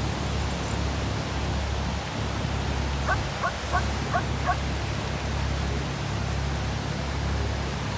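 Ocean surf washing steadily, with wind rumbling on the microphone. About three seconds in, a quick run of about six short, rising squeaky calls from an animal.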